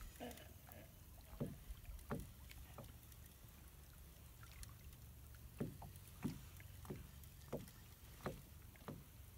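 Small waves lapping against the side of a small fishing boat: a series of soft, short slaps and splashes at irregular intervals of roughly a second.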